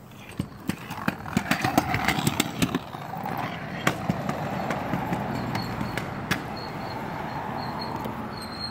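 Irregular clicks and knocks for the first few seconds, then a car driving by with a steady rush of tyre and road noise.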